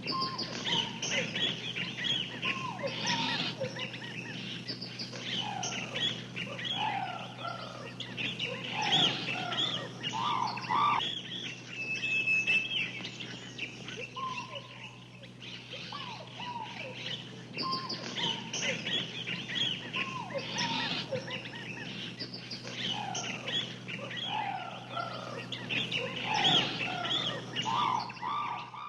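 Many birds chirping and singing at once: a dense chorus of short overlapping calls and whistles, over a steady low hum.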